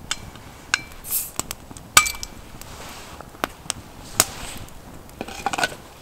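Crown cap being pried off a glass beer bottle: a series of sharp metal-on-glass clinks and taps, two of them ringing briefly, with a short hiss about a second in.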